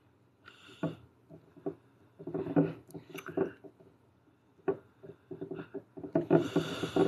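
Handling noises from polymer-clay sculpting on a glass bottle: the bottle shifted on a wooden tabletop and a metal sculpting tool scraping and tapping, an irregular run of knocks and rubs that grows denser near the end.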